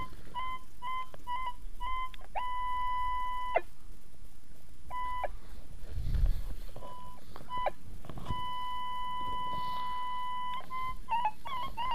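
Minelab E-Trac metal detector with a Coiltek Platypus coil sounding off over a buried target: a run of short beeps at one pitch, a steady tone held about a second, more scattered beeps, a longer held tone of about two seconds, then quick beeps again near the end. The detectorist takes the target for a large piece of iron.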